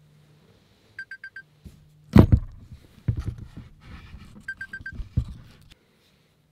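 Smartphone alarm beeping in quick groups of four, once about a second in and again about four and a half seconds in. A loud thump about two seconds in and rustling and knocks fill the gap between the two groups.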